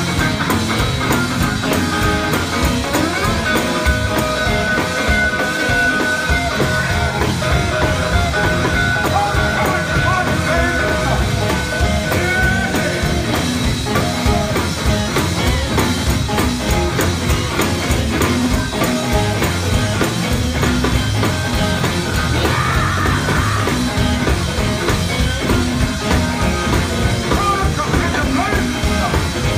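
Live gospel quartet band playing loudly: electric guitars and bass over a drum kit and keyboard, without a break.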